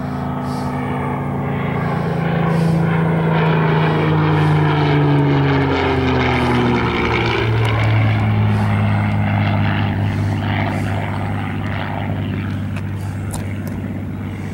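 Supermarine Spitfire's V12 piston engine in a flypast. The engine note grows louder, drops in pitch as the plane passes about halfway through, then slowly fades as it flies away.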